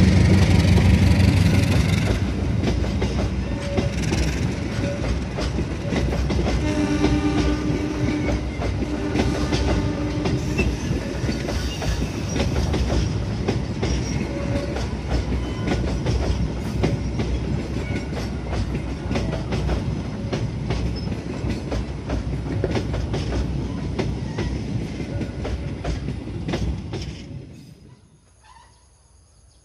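Passenger train coaches rolling across a concrete rail bridge, wheels clattering over the rail joints, while the diesel-electric locomotive's engine fades over the first two seconds. A horn sounds twice, about seven and nine seconds in. The train sound cuts off sharply near the end.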